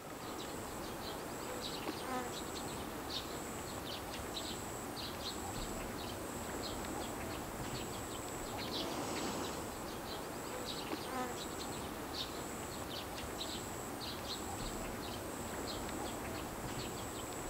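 Insects buzzing with a high, thin whine that comes in short, closely repeated stretches, with scattered short chirps over it.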